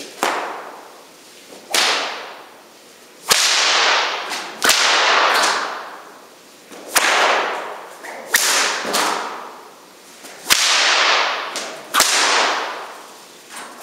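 A 10-foot synthetic whip with an all-white Dacron overlay being cracked repeatedly: a series of sharp cracks every one to two seconds, each followed by a long echo from a large hall.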